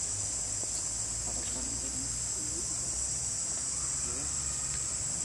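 Steady high-pitched drone of an insect chorus, unbroken and even, with faint distant talking underneath.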